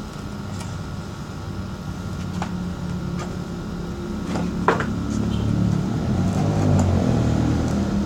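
Homemade drum sander driven by an electric drill running steadily, with a sharp knock about halfway through.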